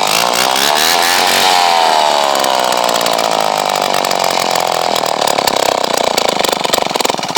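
McCulloch model 47 single-cylinder two-stroke chainsaw engine running with no bar or chain fitted. It revs up over the first second and a half, then slowly loses speed, and its firing turns ragged near the end as its air is choked off to stop it, since the saw has no kill switch.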